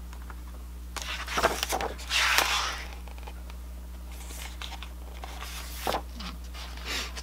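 Pages of a thick paper rulebook being turned by hand: paper rustling and swishing, with two louder page turns about a second and two seconds in and softer rustles after, over a steady low hum.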